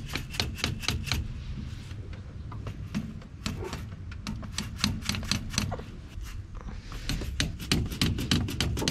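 Quick light clicks and taps, several a second, in three spells, over a low steady hum.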